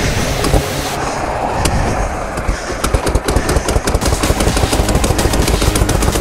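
Harley-Davidson Shovelhead V-twin engine running, its exhaust giving a rapid, uneven popping beat that quickens about three seconds in.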